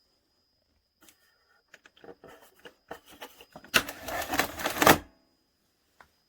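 A run of scattered clicks and knocks, then a loud, dense clatter lasting about a second, and a single click near the end, like hard objects being handled.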